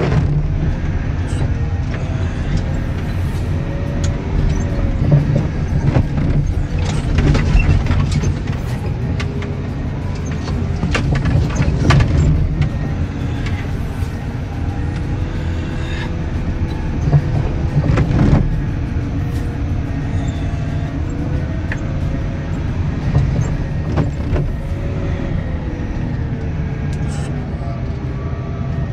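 Mud and debris flow rushing across a road in a rainstorm: a steady low rumble with rain hiss and scattered sharp knocks of rocks, the loudest about eighteen seconds in.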